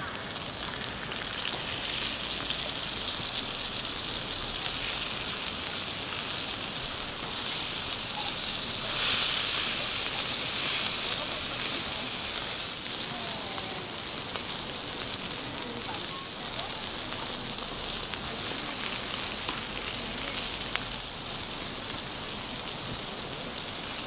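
Beef sirloin steaks searing on a Petromax fire bowl griddle: a steady sizzle that swells for a few seconds near the middle. One sharp click comes near the end.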